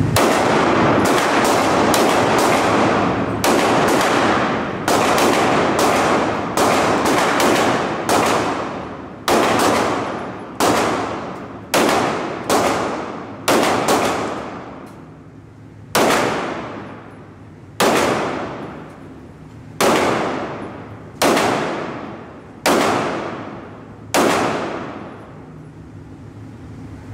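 Handgun shots echoing in an indoor shooting range. For the first fifteen seconds they come in quick strings, several a second, then they slow to single shots about every one and a half to two seconds, each ringing out in the hall.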